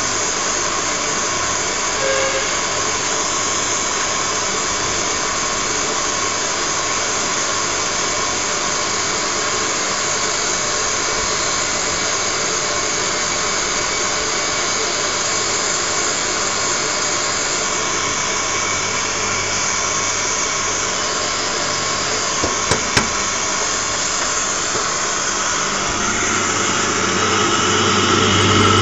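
Electric grinding mill running steadily with an even, high whir as it grinds seeds into paste. A few sharp clicks come about three quarters of the way in, and near the end the sound turns louder and deeper.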